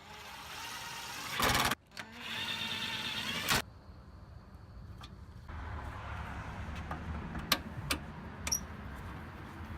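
Power drill running in two short bursts, driving fasteners during reassembly, followed by a low steady hum with a few sharp clicks.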